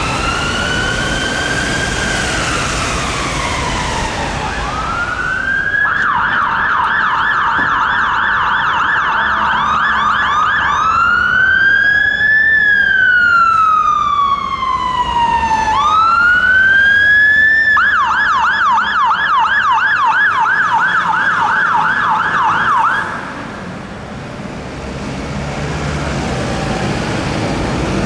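An ambulance siren's slow rising-and-falling wail fades out over the first few seconds. Then a London Fire Brigade Mercedes-Benz fire engine's siren takes over, switching between a fast yelp and a slow rising-and-falling wail, and cuts off suddenly near the end, leaving traffic noise.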